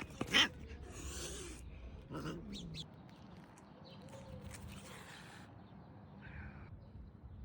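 Cats fighting: a loud, short cry just after the start, a yowl falling in pitch about two seconds in, and short noisy bursts in between and later.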